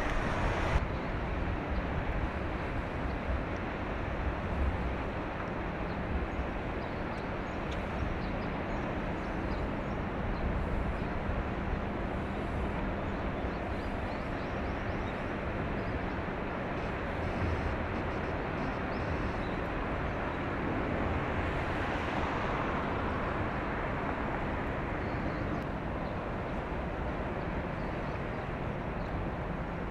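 A passing container ship, heard as a steady low rumble and hiss of engine and water. A faint steady hum runs through roughly the first half.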